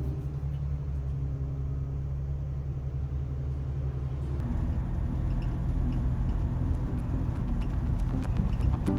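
Low, steady rumble of a vehicle in motion, growing rougher and more uneven about halfway through.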